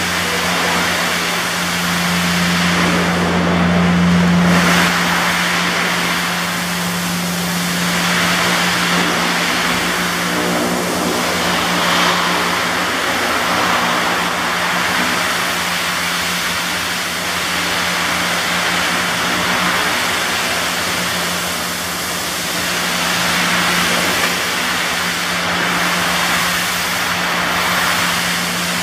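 Steady drone of machinery running, a constant hum with a hiss over it that swells and fades every couple of seconds.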